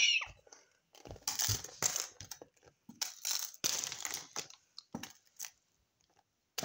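Crunchy crisps being crushed and crumbled against a hard surface, in several rough crunching bursts with short pauses between them.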